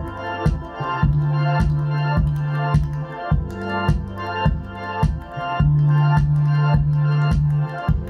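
Vulkkano D4 powered plastic bookshelf speakers playing a music sample for a sound test: a track with a steady beat a little under twice a second. Two deep held bass notes, each about two seconds long, come about a second in and again past the middle, and they are the loudest part.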